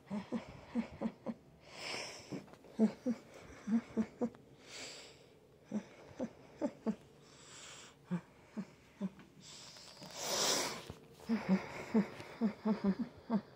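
Small dog making short, wheezy grunts in quick runs, with a few longer breathy huffs between; the longest, loudest huff comes about ten seconds in.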